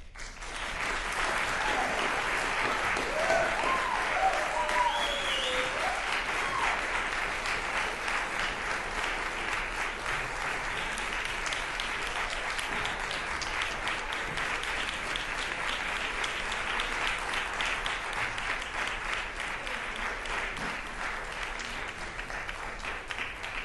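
Crowd applauding steadily, starting suddenly, with a few voices whooping and calling out in the first several seconds.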